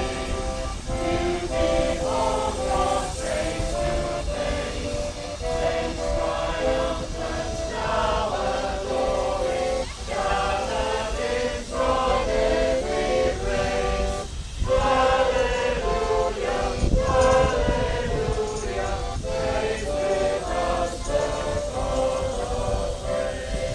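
A small choir of mixed voices singing together from song sheets, holding notes and moving from phrase to phrase, over a steady low rumble.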